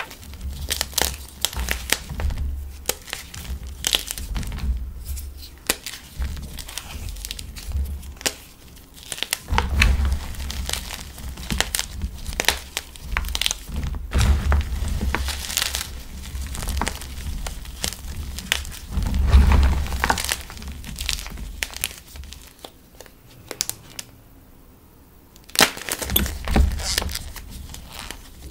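Hands crushing and crumbling brick-hard gym chalk blocks coated in coloured powder: dense crunching and cracking, with a short lull near the end.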